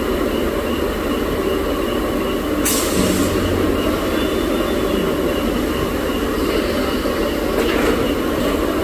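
uPVC pipe socketing machine running with a steady mechanical din. A short hiss comes about three seconds in, and a fainter one near the end.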